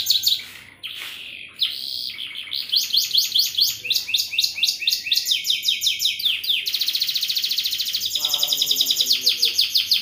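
Domestic canary singing a long, full song of fast trills and rolls: runs of rapid repeated notes that change pace and pitch every second or so, with a brief break just under a second in.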